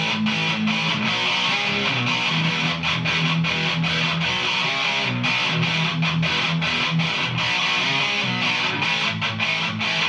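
2005 B.C. Rich Mockingbird electric guitar with dual humbuckers, played through a Vox combo amp with overdrive: a continuous distorted riff of low notes with many quick picked strokes.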